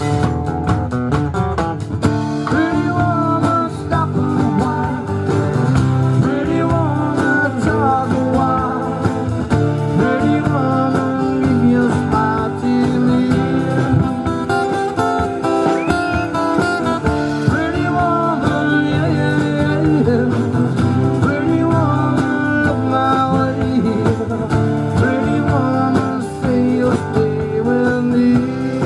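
Live acoustic rock band playing: strummed acoustic guitar with a drum kit, and a male voice singing that comes in about two seconds in.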